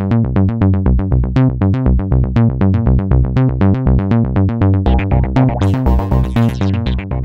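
Background music: a quick, even stream of notes, about eight a second, over a steady bass line.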